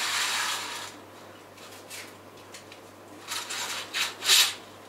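Curtain being drawn across a window: a scraping swish about a second long at the start, then three shorter swishes past the three-second mark.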